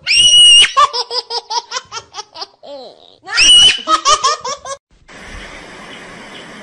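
High-pitched human laughter: a shrill held squeal breaking into rapid ha-ha-ha pulses, heard twice and ending about five seconds in. A faint steady background hiss follows.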